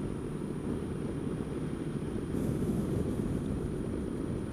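Honda Dio scooter under way, its engine running steadily under a dense low rumble of road and wind noise on the bike-mounted camera's microphone.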